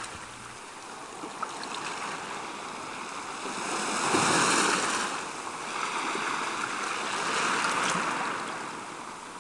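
Wash of small waves on open water with wind, a steady noisy hiss that swells louder twice and fades near the end.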